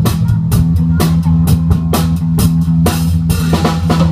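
Rock-style band music: a drum kit keeping a steady beat, about two strikes a second, over bass and guitar.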